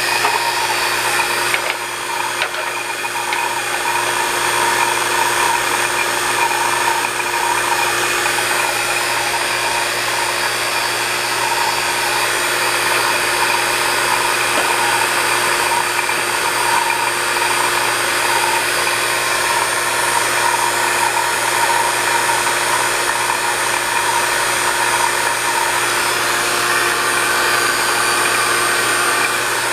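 Refrigeration vacuum pump running steadily with an even hum while evacuating an air-conditioning system. It has gone really quiet, yet the micron gauge is not yet coming down, which points to a leak that the technician traces to the king valve.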